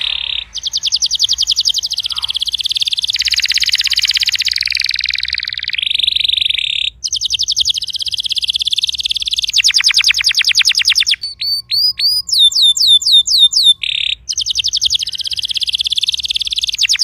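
Domestic canary singing a long song of fast trills and rolls, broken by brief pauses. About two-thirds of the way through comes a run of quick, falling whistled notes.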